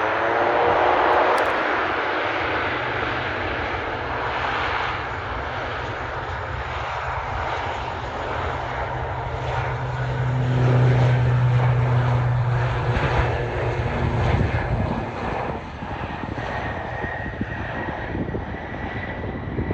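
ATR 42-600 twin turboprop, its two Pratt & Whitney PW127 engines and propellers at takeoff power, making a steady low propeller hum. The sound swells to its loudest about halfway through, then drops away over the last few seconds as the aircraft departs.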